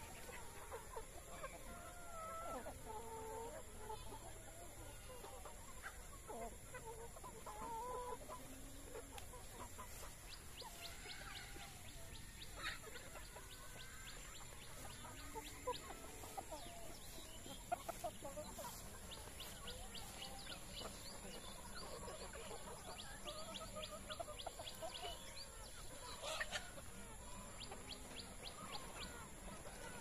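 A flock of Rhode Island Red and local chickens clucking, with many short, overlapping calls scattered all through.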